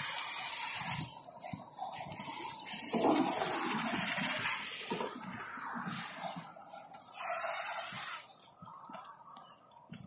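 Rushing noise of riding a bicycle along a concrete path: tyres rolling and air rushing past the microphone, with a few surges. It drops away about eight seconds in as the ride slows.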